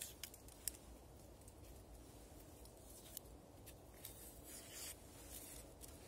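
Small knife peeling and trimming a raw onion: faint, crisp clicks of the blade and a soft scraping of the skin, the longest scrape about four to five seconds in.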